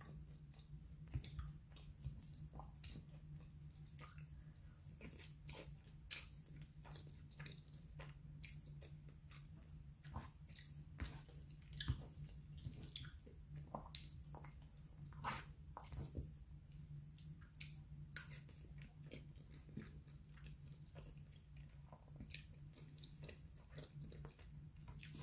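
A person chewing a mouthful of baked spaghetti: faint, irregular wet mouth clicks and smacks, over a steady low hum.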